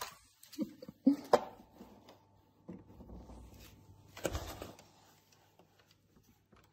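A few sharp taps on a plastic toy and a windowsill, the loudest about a second in and another knock near the middle, with a short vocal sound just before the first taps.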